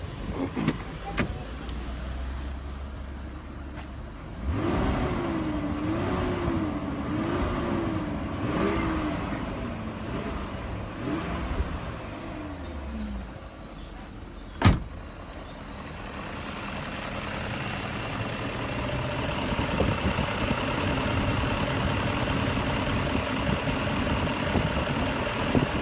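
BMW E38's M62B44TU 4.4-litre V8 making the strange noises under investigation. A wavering whine rises and falls about once a second for several seconds, then there is a single sharp click, then a steadier running sound that grows louder.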